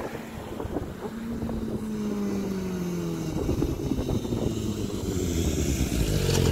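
Motorcycle engine running through a Akrapovic aftermarket exhaust. Its pitch falls steadily for a couple of seconds, then a louder, fuller engine note builds near the end.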